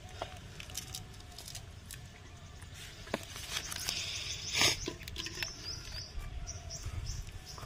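Rustling, scratchy crackling and small clicks as a wet nylon cast net is handled and gathered up on dry grass, with a louder scuff about four and a half seconds in.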